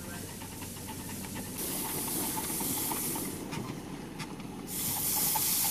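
Miniature live-steam locomotive hissing steam in two loud bursts, one about a second and a half in and one near the end, each lasting under two seconds, over a low steady rumble.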